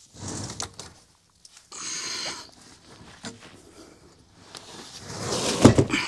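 Scrapes and knocks of someone working by hand in a tight closet: a brief scrape just after the start, a higher-pitched scrape about two seconds in, a small click, then a louder stretch of shuffling ending in a heavy thump just before the end.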